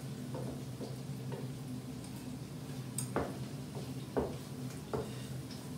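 Light, scattered clicks and taps of a small metal offset spatula against a plastic cutting board as egg yolks are lifted and wrapped in slices of ham, the sharpest a few clicks about three to five seconds in. A steady low hum runs underneath.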